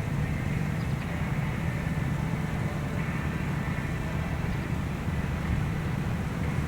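Steady low outdoor rumble with no siren sounding, and a faint high tone that comes and goes a couple of times.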